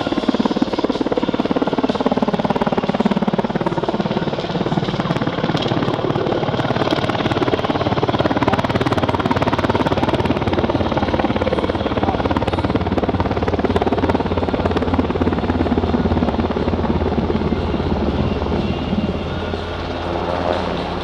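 NH90 NFH naval helicopter flying by, its twin turboshaft engines and rotor running with a steady, rapid rotor beat. The pitch falls in the first few seconds, and a deeper rotor drone builds from about halfway as it banks close overhead.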